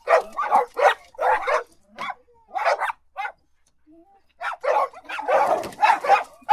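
Barking: a quick run of short, sharp dog-style barks, a pause of about a second, then denser barks crowding together near the end.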